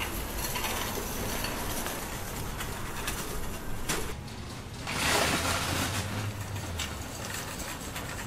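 Outdoor parking-lot ambience: a steady rush of wind and distant traffic with a low rumble, swelling louder for about a second around five seconds in.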